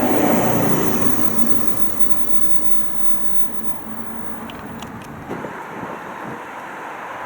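A train passing close by, loudest in the first second, then fading away into a steady, quieter background noise.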